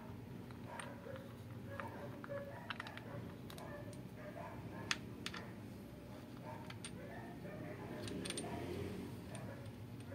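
Scattered light clicks and taps of a jigsaw's plastic housing half being handled over the open tool, the sharpest about five seconds in.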